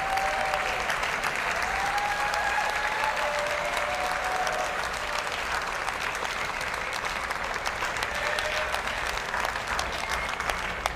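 Audience applauding steadily, with a few drawn-out whoops rising over the clapping now and then.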